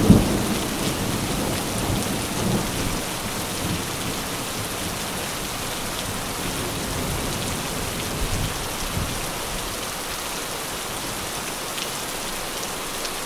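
Steady heavy rain, with a roll of thunder dying away over the first couple of seconds. A brief low rumble comes again about eight seconds in.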